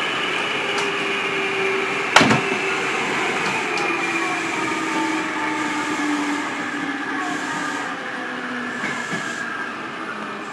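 Train running noise heard inside a passenger car, with a whine that falls slowly in pitch as the train slows. There is one sharp knock about two seconds in.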